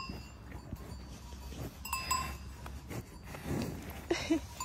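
Cowbells on grazing cattle clanking faintly a few times, each a short ringing clang.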